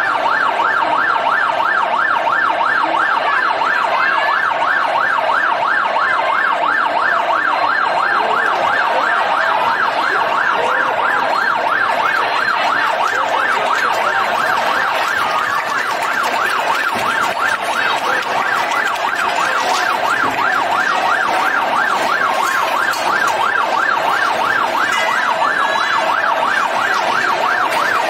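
Fire engine siren sounding continuously in a rapid yelp, its pitch sweeping up and down several times a second.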